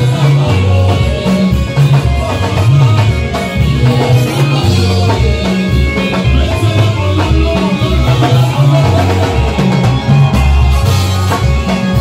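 Live church praise-and-worship music: a band with a heavy, moving bass line and drums.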